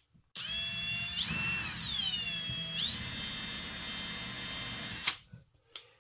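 Hercules cordless drill spinning a countersink bit into a softwood block, its motor whine rising, dipping and rising again in pitch before stopping about five seconds in.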